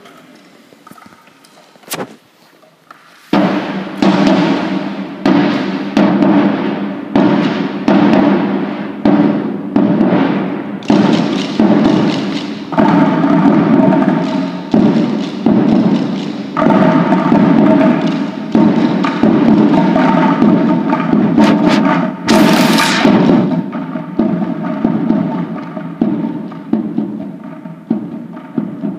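Children's bucket-drum ensemble hitting plastic buckets with drumsticks together with a drum played with a mallet, keeping a steady beat in unison. It starts after a few quiet seconds and a single hit, and there is one brief crash about three quarters of the way through.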